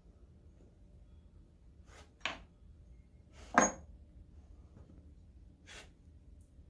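Hand tools clinking as wrenches are handled on the workbench: a few short metallic clinks, the loudest about three and a half seconds in.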